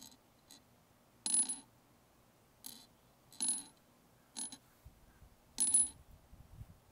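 Pieces of moldavite tektite dropped onto petrified wood, clinking about six times roughly a second apart. Four of the clinks carry a brief high ring, the chime that sets Angel Chime moldavite apart from ordinary moldavite.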